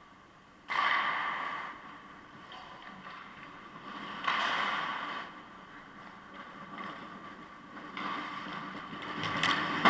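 Ice skate blades scraping and hissing across the ice in three bursts of about a second each, with a sharp knock near the end.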